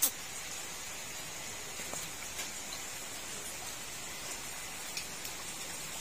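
Heavy rain falling steadily, an even hiss, with a sharp click right at the start and a few faint ticks.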